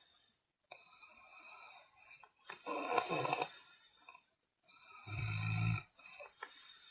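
A person snoring in sleep: a run of noisy breaths about every two seconds, one with a low buzzing rattle about five seconds in.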